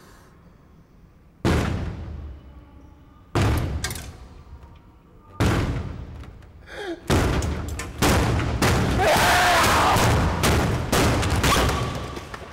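Heavy blows on a metal vending machine: four single thuds about two seconds apart, each ringing briefly, then a fast flurry of pounding from about eight seconds in.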